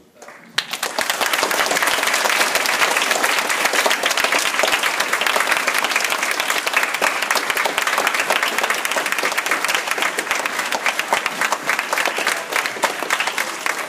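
An audience of schoolchildren applauding: dense, loud clapping that breaks out suddenly about half a second in and carries on steadily, easing slightly near the end.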